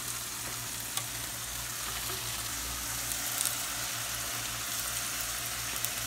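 Steady sizzle of food frying in oil in skillets on an electric stove, with a couple of faint clicks and a low hum underneath.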